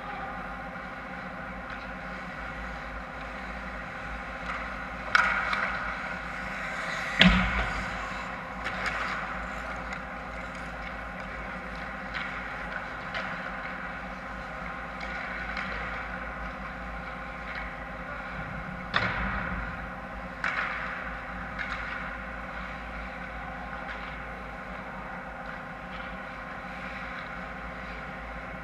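Ice hockey play in an indoor rink: a steady background hum broken by several sharp, echoing knocks of pucks and sticks against the ice and boards, the loudest about seven seconds in.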